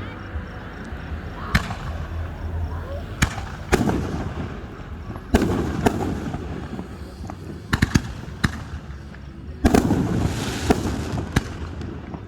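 Fireworks shells bursting overhead: sharp bangs at irregular intervals, each with a rolling echo. There is a quick cluster of bangs about eight seconds in, and a hissing crackle after the burst about ten seconds in.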